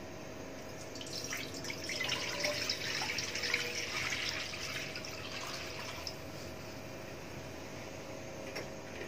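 Water poured from a plastic jug into a non-stick frying pan, splashing for about five seconds from about a second in, then tapering off.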